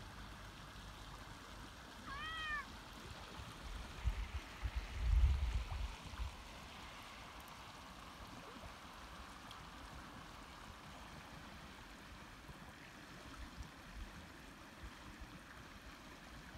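A shallow creek running steadily, with a single short meow from a cat about two seconds in. There is brief low rumbling around four to six seconds in, the loudest moment.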